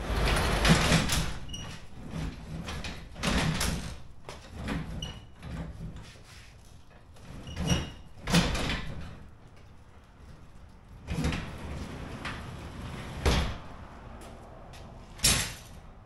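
Sectional garage door being pushed up by hand, its panels and rollers rumbling and clattering along the steel tracks in about six separate bursts with pauses between as the door stops and catches. The owner puts the sticking down to the lift cable getting caught at the new high-lift pulley.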